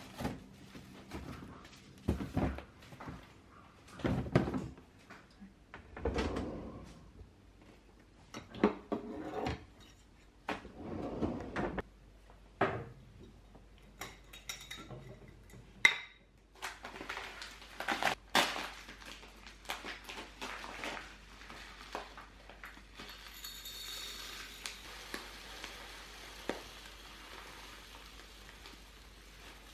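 Dishes and cutlery being handled: irregular clinks and knocks of crockery and metal, with a softer hiss later on.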